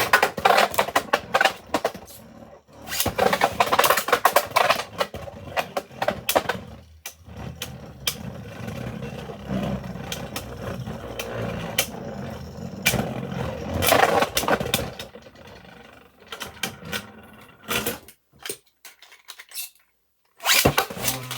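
3D-printed Beyblade spinning tops whirring and clashing in a stadium, with rapid clicking and rattling hits. The sound cuts out for a couple of seconds near the end, then starts again.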